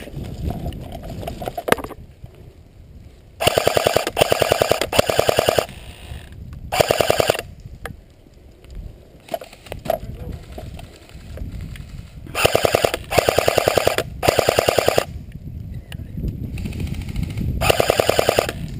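Airsoft electric gun firing on full auto: about eight short bursts of rapid clicking shots. There are three bursts close together a few seconds in, one on its own near the middle, three more together after that, and one near the end.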